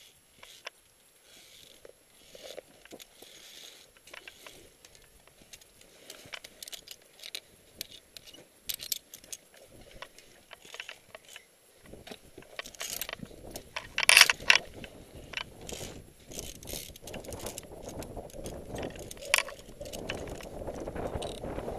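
Metal climbing gear clinking and scraping against a fixed via ferrata steel cable and rock, with boots scuffing on rock and loose gravel. About halfway through a low rushing noise joins in, and one loud clack comes a little after.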